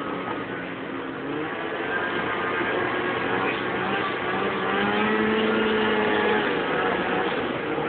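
Lynx GLX snowmobile engine running under way over snow, its pitch climbing a second or two in, holding, then falling off near the end.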